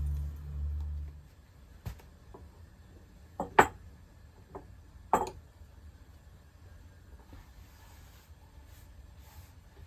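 Glassware being set down on a wooden table: a few short knocks, the loudest two about three and a half and five seconds in. A low hum stops about a second in.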